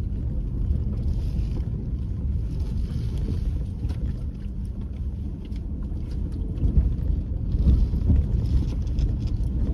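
A vehicle driving on an unpaved gravel track: a steady low rumble of tyres and running gear, with wind on the microphone and a few bumps that get louder about two-thirds of the way through.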